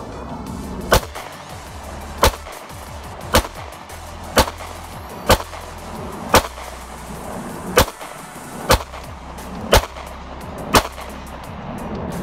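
A Glock 26 9mm pistol firing ten shots in a steady string, roughly one a second.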